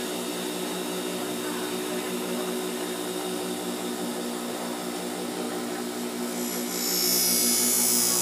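Bench grinder motor running with a steady hum. About six and a half seconds in, a machete blade is pressed to the wheel and a loud, hissing grind starts.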